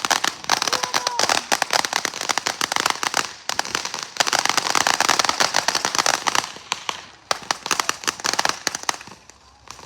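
Fireworks crackling: a dense, rapid string of sharp pops that breaks off briefly about three and a half seconds in, starts again, then thins out near the end.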